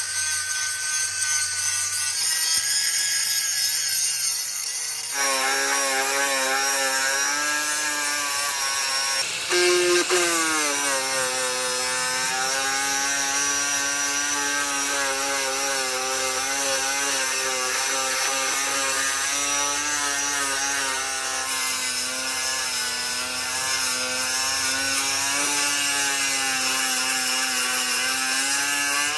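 A power tool running under load on metal, a steady whine with a hissing, rasping edge. The whine sags in pitch about ten seconds in as the tool bites, then holds.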